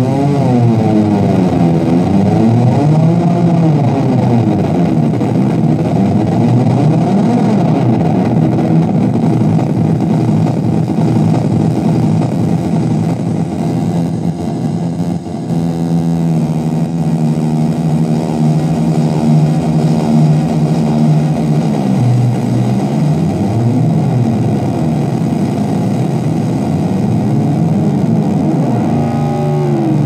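Korg Monotron Delay analogue synthesizer droning with a buzzy tone whose pitch sweeps slowly up and down as its knobs are turned, over a steady hiss.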